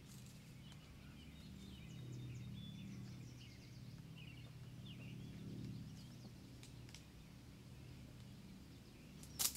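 Faint outdoor ambience: small birds chirping now and then over a low steady hum. A single sharp knock sounds just before the end.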